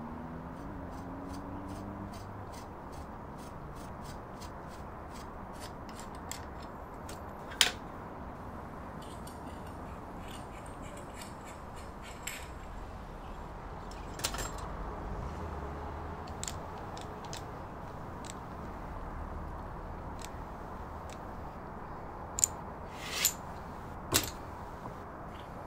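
Small objects being handled: a run of light, quick clicks, then a few sharper clacks, over a steady background hiss.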